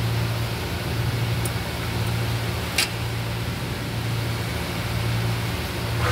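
Steady low hum of workshop air-handling noise, with a single short sharp click about three seconds in.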